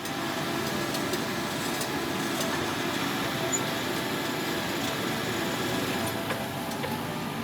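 Steady noise of heavy machinery or a vehicle engine running, without a clear change through the stretch.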